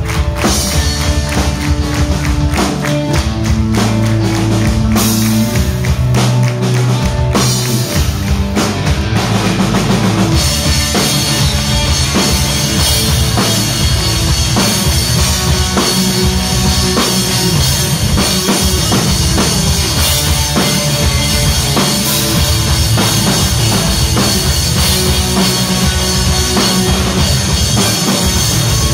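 Live pop-punk band playing: electric guitar, bass guitar and a drum kit, loud and driving. About ten seconds in the sound gets fuller and brighter in the highs.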